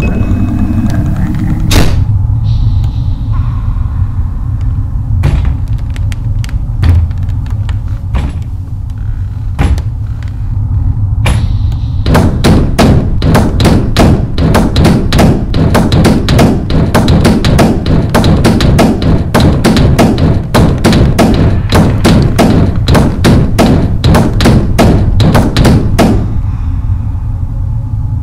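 Horror film sound design: a steady deep drone under heavy thuds, a few scattered ones at first, then rapid pounding about three a second from about halfway in, stopping abruptly near the end.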